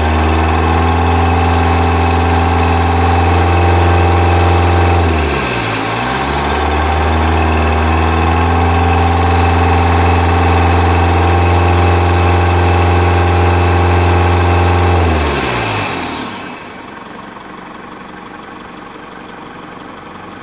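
A 3.0-litre turbo diesel engine in a Holden Colorado ute, running steadily at idle. Its pitch dips and recovers about five seconds in. About sixteen seconds in the engine note falls away and stops, leaving a quieter steady noise.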